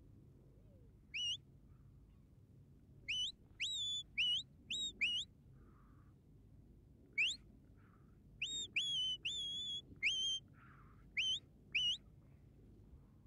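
Shepherd's whistle commands to working sheepdogs: about thirteen short, sharply rising whistle notes in clusters, some held briefly at the top of the rise.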